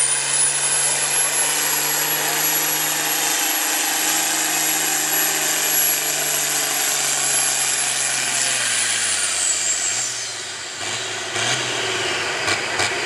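Oliver tractor's diesel engine running flat out under load as it drags a tractor-pull weight-transfer sled, with a steady high whine over the engine note. About nine seconds in, the revs and the whine fall away as the pull ends.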